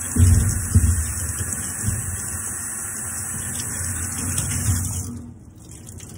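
Running water rinsing soap off a screen-printing mesh screen in a steel sink, steady and splashing, with a few low thumps in the first second. The water shuts off about five seconds in.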